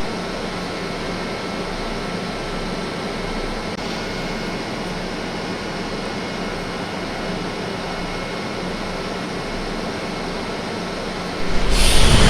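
Mexico City Metro train running with a steady hum and faint steady tones, growing suddenly much louder and harsher near the end.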